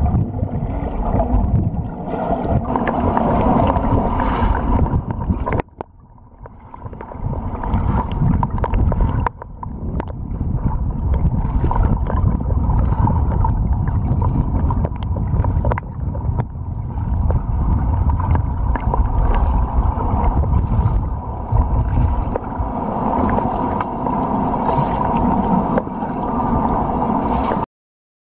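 Underwater sound in a swimming pool: a dense, muffled rumble and gurgling of water churned by a swimmer's freestyle strokes and kicks, with a steady faint tone underneath. It drops away about six seconds in, builds back up, and cuts off abruptly near the end.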